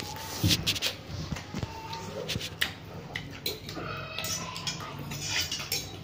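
Two people hurriedly eating instant noodles: slurping and chewing noises, with repeated short clicks of forks and spoons against plates.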